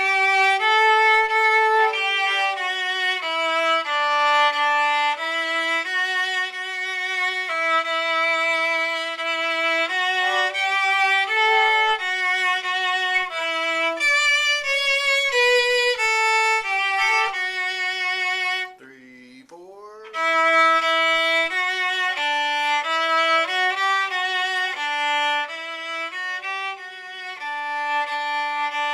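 Solo viola playing a bowed melody in held notes, one note every half second to a second. There is a short break about two-thirds through.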